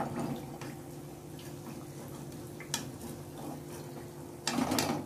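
Metal spatula clicking and scraping against a kadhai as battered aubergine fritters are lifted out of hot frying oil, over a faint steady hum. One sharp click comes midway, and a louder scrape near the end.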